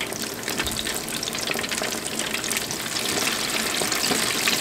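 Floured chicken wings frying in hot peanut oil in a deep fryer: a dense sizzle full of crackling pops as more wings are lowered in, growing a little louder toward the end.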